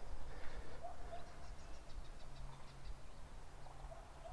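Quiet outdoor ambience with faint, distant bird chirps.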